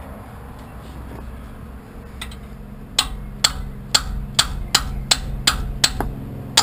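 Hammer striking a spanner to shock loose a rust-seized suspension-arm bolt: sharp ringing metallic clinks about three a second, starting about three seconds in. The bolt is rusted solid and does not budge.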